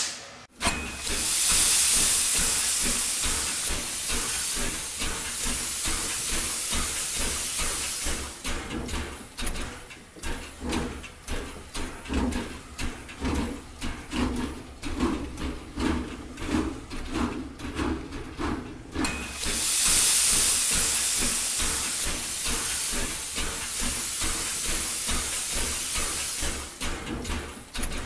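Steam train running: two long loud hisses of steam, with the steady rhythmic beat of the moving train, about one and a half beats a second, between them and after, over a low rumble.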